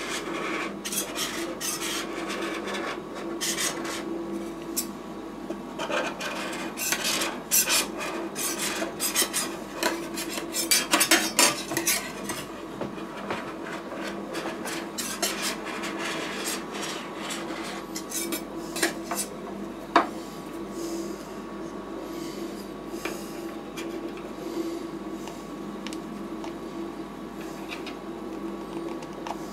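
Metal spatulas scraping frozen ice cream across the stainless-steel cold plate of a rolled-ice-cream machine, in quick repeated scraping strokes. The strokes are busiest and loudest in the first twelve seconds, then sparser, with a single sharp click about twenty seconds in. A steady hum runs beneath.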